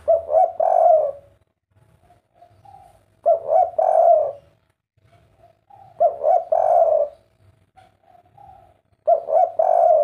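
Spotted dove cooing in its 'kuk 3' three-note style: four phrases about three seconds apart, each a soft lead-in followed by a loud coo of a few notes.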